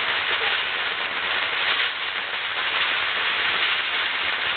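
Fireworks hissing and crackling in a steady, dense hiss, with no distinct bangs.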